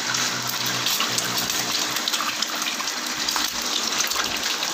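An egg frying in hot oil in a steel wok: a steady sizzle.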